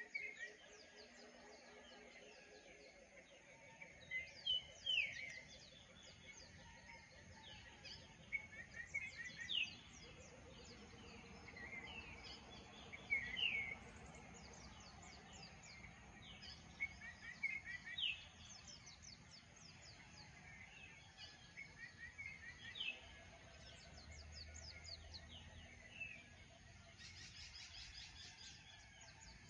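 Several birds chirping and calling, in short quick notes that come in groups every few seconds, with a faster run of chirps near the end. Faint outdoor background noise runs underneath.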